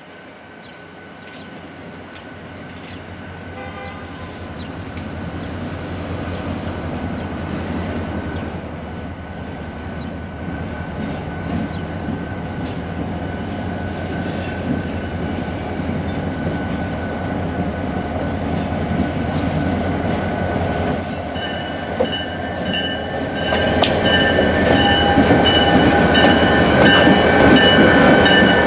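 NYS&W diesel locomotive hauling a tie train of gondolas approaches and goes by, its engine rumble and wheels on the rails growing steadily louder. Steady high-pitched tones sit over it and get stronger near the end as the locomotive passes.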